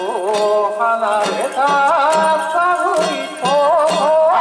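Danjiri festival music: a wavering, ornamented melody carried over irregular percussion strikes.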